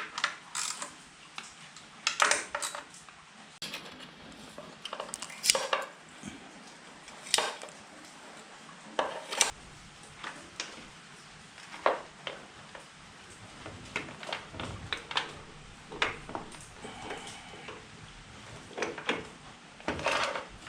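Irregular metallic clinks and clatters, a sharp knock every second or so: hand tools and small metal parts being handled during motorcycle transmission repair work.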